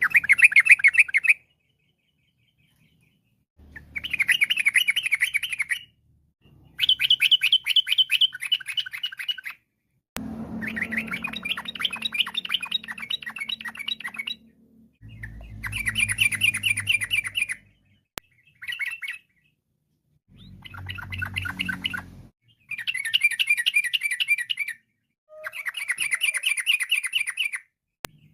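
Yellow-vented bulbul (trucukan) singing: about nine bursts of fast, bubbling chattering phrases, each one to four seconds long, separated by short silent gaps.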